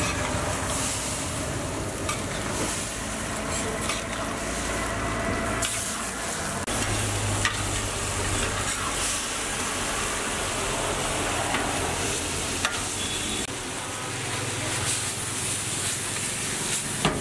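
Chicken sizzling and frying in a hot iron wok over a gas burner, stirred and tossed with a metal spatula that scrapes and clinks now and then against the pan.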